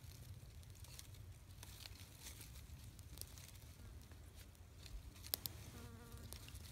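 Faint crackling and snapping of dry twigs as a bundle of small sticks is laid onto a small kindling fire, with one sharper snap a little after five seconds in. Near the end a fly buzzes briefly.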